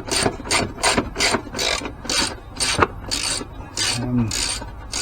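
Ratchet wrench being worked back and forth to undo a body-panel bolt, a raspy clicking stroke about twice a second, with one sharper click partway through.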